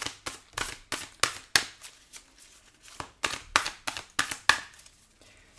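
A deck of oracle cards being shuffled by hand, the cards slapping together in a quick, uneven run of sharp clicks with a short pause about halfway through.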